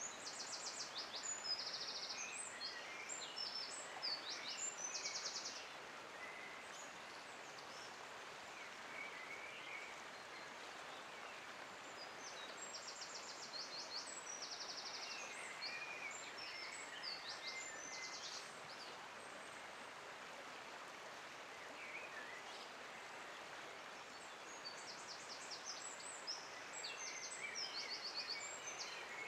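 A songbird sings high, rapid trilled phrases three times, each several seconds long. Under the song runs a steady outdoor background hiss.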